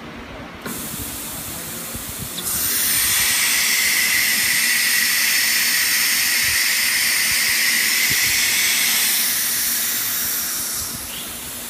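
Compressed air hissing from the automatic-tool-changer spindle of a STYLECNC STM8080 CNC router, the air blast of a tool change. A softer hiss starts just under a second in, swells to a loud steady blast about two and a half seconds in, and fades near the end.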